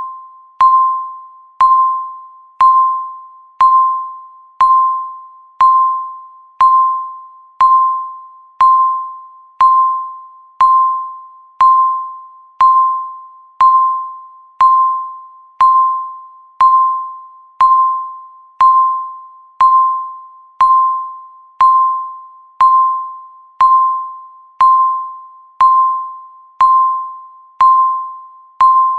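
Countdown timer beep sounding once a second, each a single clear tone that strikes sharply and fades away before the next, marking each second left on the countdown.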